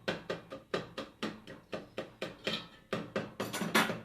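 A spoon knocking and scraping against a cooking pot while stirring melting sugar. It makes a fast, fairly even run of sharp clicks, about four or five a second, loudest near the end.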